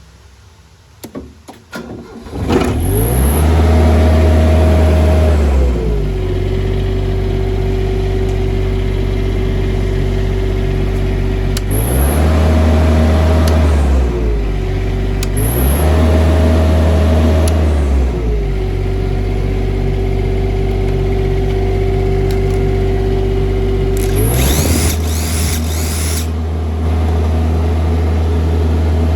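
Denyo BLW-280SSII engine-driven welder starting after a few clicks, then running. It runs fast for a few seconds, drops to a slower steady speed, revs up twice briefly, and settles back. About 24 seconds in, the engine note changes to a different steady speed with a brief hiss over it.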